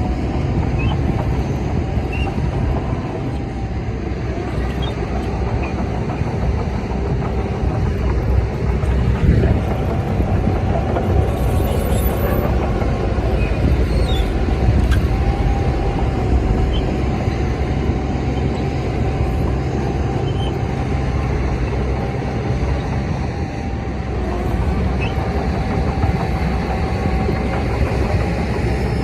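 Shantui DH17C bulldozer's diesel engine running steadily with a low rumble and a steady whine on top.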